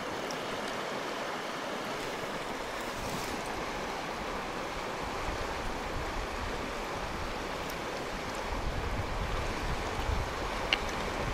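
Shallow river water running and lapping steadily over the stones at the bank. Near the end a low rumble of wind on the microphone joins it, with one sharp click.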